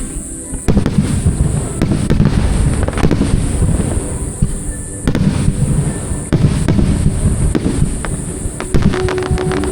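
Fireworks exploding in quick, overlapping bursts, with booms and crackling. Music comes in near the end.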